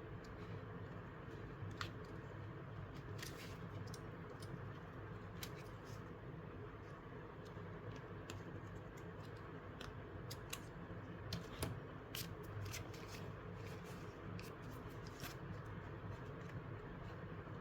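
Scissors cutting paper, with the paper being handled: scattered small snips and clicks over a steady low hum.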